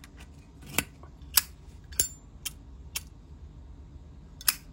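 Zippo lighter being handled: six sharp metallic clicks of its hinged lid and mechanism, unevenly spaced, one with a brief high ring.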